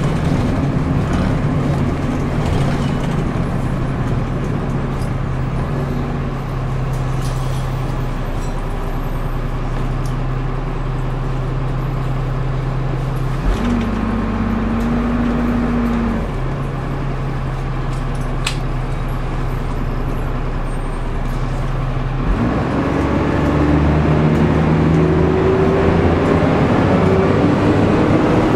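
Dennis Dart SLF single-deck bus heard from inside the saloon, its diesel engine running steadily under way. The note changes briefly about halfway through, and in the last few seconds it climbs in pitch and grows louder as the bus picks up speed.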